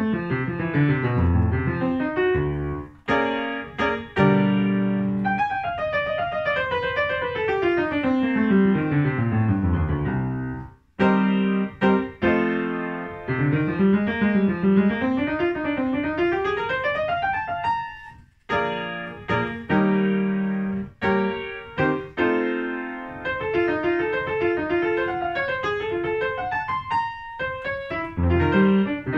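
Grand piano played solo in a brisk classical style. Rapid notes and chords, with a long falling scale run and later a rising run, broken by short pauses about three, eleven and eighteen seconds in.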